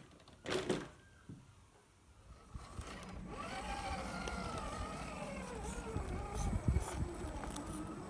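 Small electric motor whining, its pitch wavering up and down as the throttle changes, from about two and a half seconds in, with a few low thuds.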